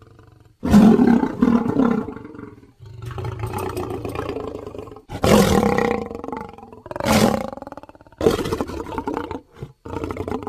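A run of monster roar and growl sound effects from an animated film: about six loud, rough roars of a second or two each, with short breaks between them, one of them lower and quieter.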